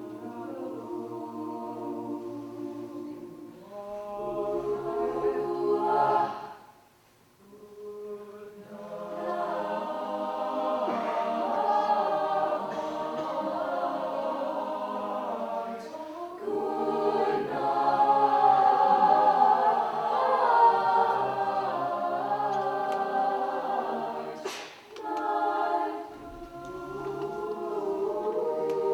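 A cappella vocal group singing in multi-part harmony, with no instruments, the phrases breaking off briefly about a quarter of the way in.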